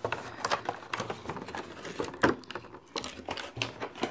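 Clear plastic blister packaging and card being handled: scattered light clicks, taps and crinkles, with a sharper knock a little over two seconds in.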